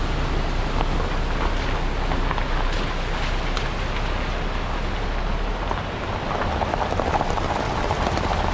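A rocky mountain stream rushing over small rapids: a steady, even rushing of water.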